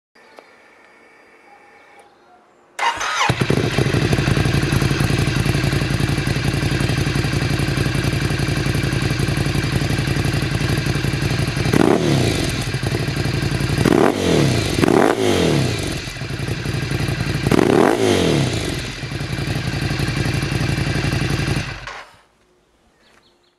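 Ducati Scrambler's L-twin engine breathing through a Termignoni full-system exhaust with the dB killer removed: it comes in suddenly about three seconds in, idles steadily, and is revved four times, each rev rising and falling in pitch. The sound cuts off suddenly near the end.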